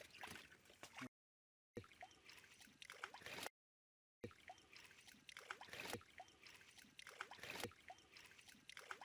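Faint water sloshing and trickling with small irregular splashes, cut twice by brief dead silences.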